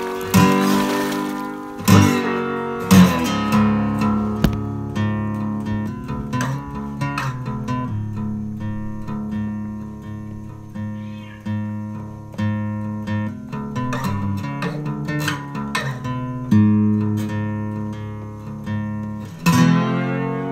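Guitar music playing: picked notes with a few strummed chords.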